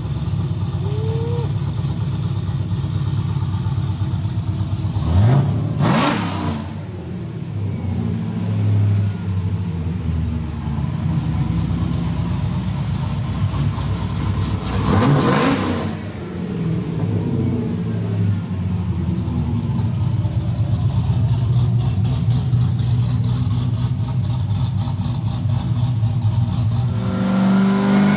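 Supercharged LSA V8 in a 4th-gen Camaro idling, blipped twice with quick rises and falls in revs about 5 and 15 seconds in, and beginning to rev up again right at the end.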